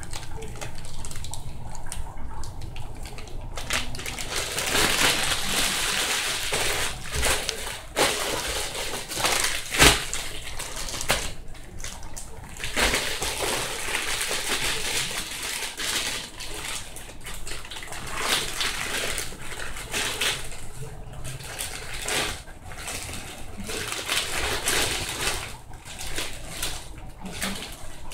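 Loose craft glitter being handled: an uneven, rustling hiss that swells and fades, with a few sharp clicks about eight and ten seconds in.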